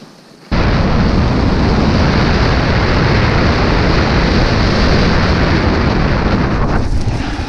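Loud, steady rush of wind buffeting the microphone while riding a snowboard fast downhill, mixed with the board sliding over groomed snow. It starts abruptly about half a second in and eases slightly near the end.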